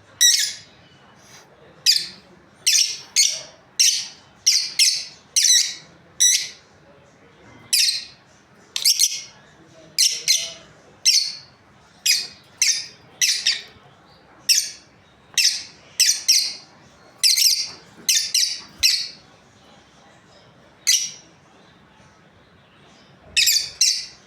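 Lovebirds calling: many short, sharp, high-pitched chirps, some in quick runs of two or three, with a pause of a few seconds before a last burst of calls near the end.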